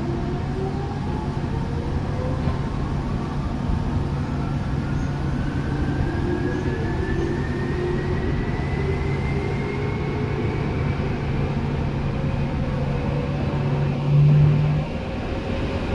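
Tokyu 8500 series electric train accelerating, heard inside the car above its line breaker: traction motor and gear whine rising steadily in pitch over a constant low hum. Near the end a brief louder low buzz sounds and the hum then stops.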